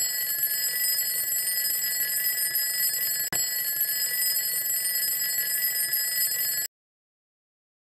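Alarm clock bell ringing continuously in a steady high ring. It breaks off for an instant about three seconds in and cuts off suddenly near the end.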